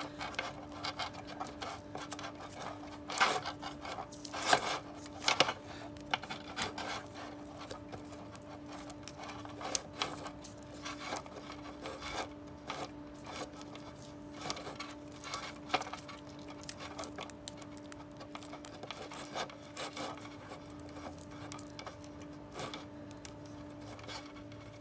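Wires and plastic connectors of a wiring harness being handled and pulled apart by hand, rubbing and clicking against each other and the sheet-metal base plate, with a few sharper clicks in the first several seconds. A steady hum runs underneath.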